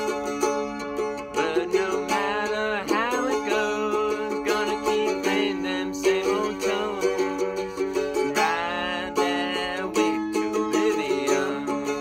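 Gibson mandolin strummed in a fast, steady rhythm, with a man singing over it in several drawn-out, gliding phrases.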